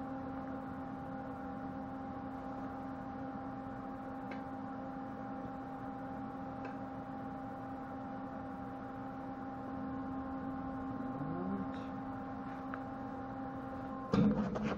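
Cheap Chinese-made MIG welder giving a steady electrical hum with no arc crackle, then cutting off near the end with a short clatter of handling. The welder is not striking an arc: its owner thinks it has finally given up.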